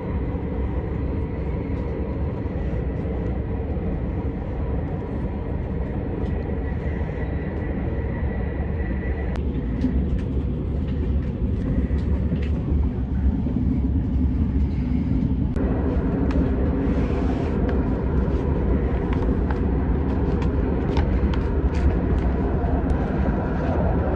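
Cabin noise inside an SRT high-speed train car under way: a steady low rumble with a faint high whine that drops away about nine seconds in. Small clicks and rustles from handling the seat-back tray table and a paper leaflet come more often toward the end.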